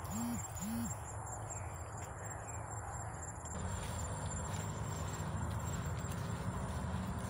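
Two low hooting calls from a bird, each a quick rise and fall in pitch, within the first second, over a steady low rumble and a thin high insect whine.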